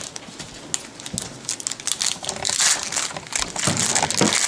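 Foil Yu-Gi-Oh booster pack wrapper crinkling and tearing as it is peeled open by hand, growing louder and denser about halfway through.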